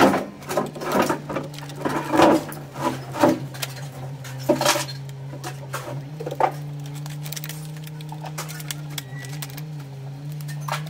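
Laptop parts being handled and taken apart: irregular plastic and metal clicks and rattles, busiest in the first half, over a steady low hum.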